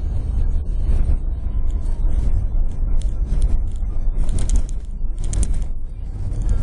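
Car driving along a sandy dirt track, heard from inside the cabin: a steady heavy low rumble of engine and tyres, with scattered rattles and knocks. There are two louder bursts of rattling about four and a half and five and a half seconds in.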